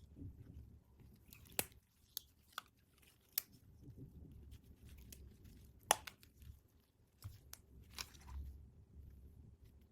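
Packaging of miniature toys being handled and opened close to the microphone: scattered sharp clicks and crinkles, with a faint low rumble underneath.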